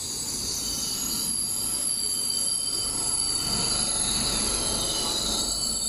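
Italo ETR625 electric multiple unit rolling slowly past along the platform: a rumble of wheels and bogies under steady high-pitched whining and squealing tones. The rumble grows louder about halfway through.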